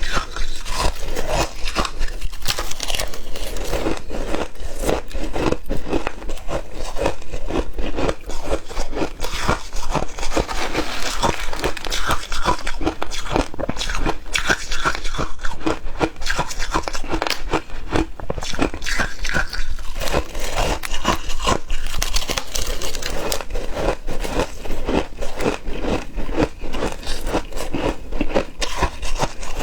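Close, loud crunching and chewing of shaved ice: a dense, continuous run of crackling bites.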